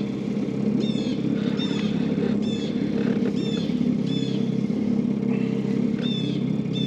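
Small outboard motor on a canoe running steadily at low speed. Over it, a short high chirp repeats about once a second.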